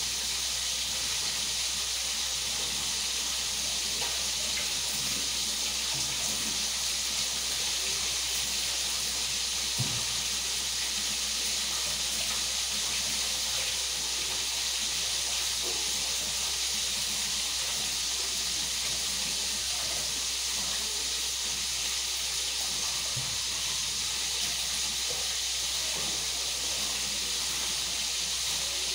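Steady hiss of food cooking on a kitchen stove, with a couple of faint knocks.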